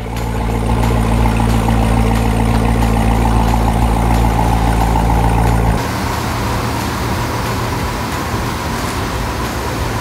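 Car engine idling steadily, an even low hum with no revving. About six seconds in it gives way abruptly to a quieter steady hum.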